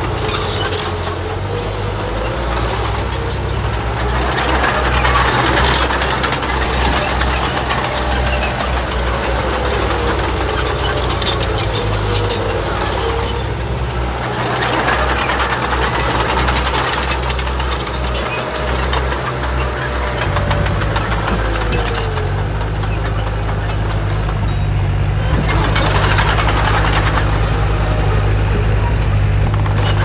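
Heavy diesel earthmoving machinery running under steady load, a deep engine drone that shifts pitch about two-thirds of the way through, with swells of rattling noise about every ten seconds.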